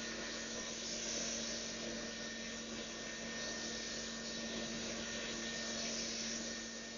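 Dreame L10 Prime robot vacuum running: the steady hiss of its suction fan over a constant low hum, growing a little louder twice, about a second in and near the end.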